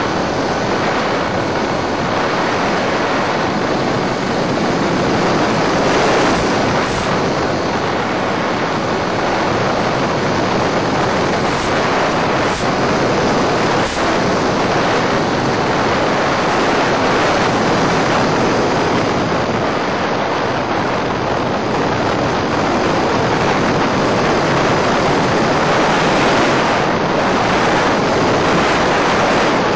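Steady rushing hiss on the audio of an EasyStar FPV model plane's video feed in flight. It stays level while the plane's electric motor throttles down to nothing, and a few brief clicks come between about 7 and 14 seconds in.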